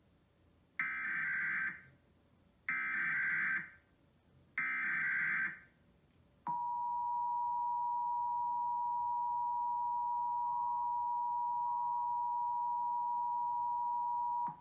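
Emergency Alert System activation: three short bursts of the digital SAME header data, then the steady two-tone EAS attention signal (853 and 960 Hz together) held for about eight seconds, starting about six and a half seconds in.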